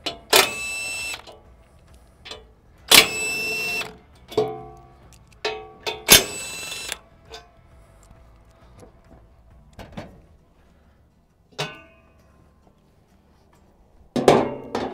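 Cordless power driver with a socket spinning out cover bolts, three runs of a high steady whine about a second each, with metal clicks and clinks of bolts and cover between them and a few knocks near the end as the cover is handled.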